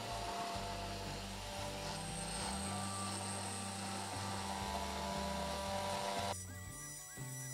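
CNC router spindle running with a steady whine as a 1/8 in O-flute end mill bores slowly into a 6061 aluminium plate, over background music. The machining noise cuts off suddenly near the end, leaving only the music.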